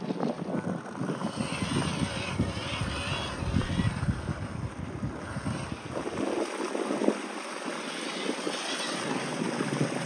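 Wind buffeting the microphone with a crackling rumble, under the driving noise of a small RC crawler working over wet rock and shallow water. The low wind rumble drops out for a couple of seconds about two-thirds of the way through, then returns.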